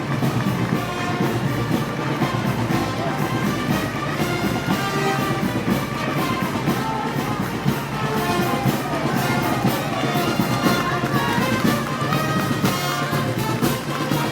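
Brass band playing Moros y Cristianos festival music: brass carrying the tune over a steady percussion beat.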